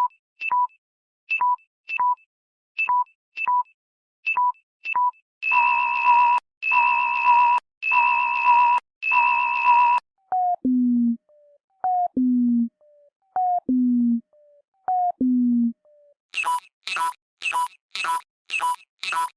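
Electronic low-battery warning tones from a phone, several alert patterns in turn. First come paired short beeps repeating about every second and a half. About five seconds in there are four longer buzzy tones, then four two-note falling chimes, and in the last few seconds a fast run of short beeps, about two a second.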